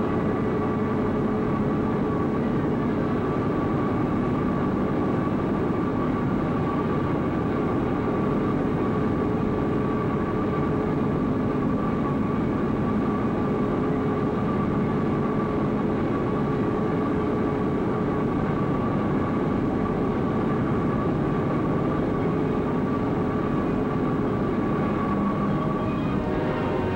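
Steady train-like mechanical rumble with two unchanging held hum tones, even in level throughout.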